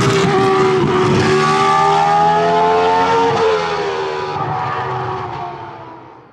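Formula One car's V10 engine at high revs, its pitch dipping and rising as it is worked. It then fades away over the last three seconds.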